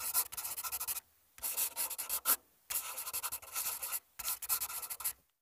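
Typing sound effect: rapid clicking keystrokes in four runs, with short pauses between them.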